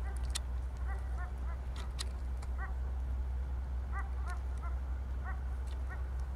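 Distant animal calls: short yelping honks that rise and fall in pitch, in clusters of two to four, repeated throughout, over a steady low rumble and a few faint clicks.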